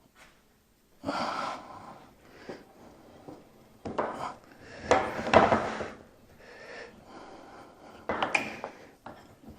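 Clanks, rattles and scrapes of steel parts and hand tools being handled during assembly of a homemade steel valve body, in several short bursts, the loudest about five seconds in.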